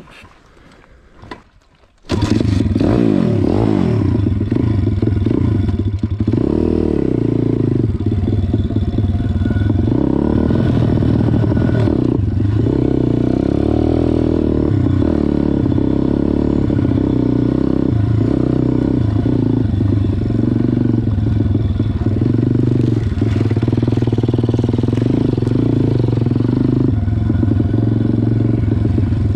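MRF 140 RC-Z pit bike's single-cylinder four-stroke engine cutting in suddenly about two seconds in, then running loud under way, its pitch rising and falling with the throttle as the bike is ridden.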